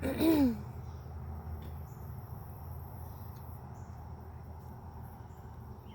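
A steady, high insect trill, like crickets, over a low rumble. One short falling pitched sound, the loudest thing here, comes right at the start.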